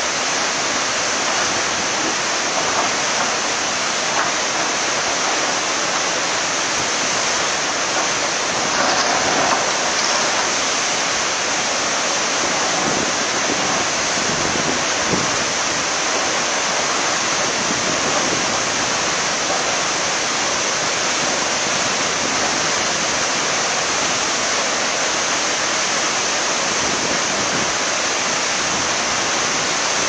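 Flash-flood torrent of muddy water rushing past, a steady loud rush of water.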